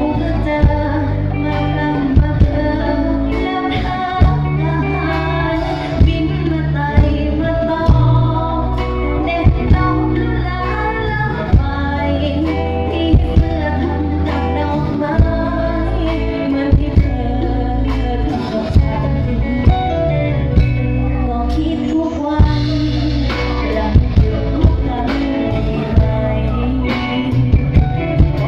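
Live band playing loud amplified music over a PA, with singing, a heavy bass line and sharp drum accents.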